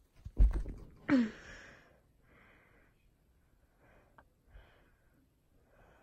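A loud knock as the phone is handled, then a short cry falling in pitch about a second in. After that, a few soft breathy puffs close to the microphone.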